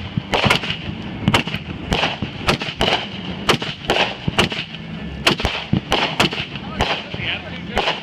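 Consumer fireworks going off in a rapid, irregular series of sharp bangs, roughly two a second.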